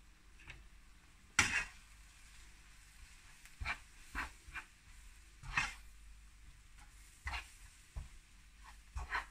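Curry powder mixture sizzling faintly in a non-stick frying pan as a plastic spatula stirs it, with scattered scrapes and knocks of the spatula against the pan. The loudest is a sharp knock about a second and a half in.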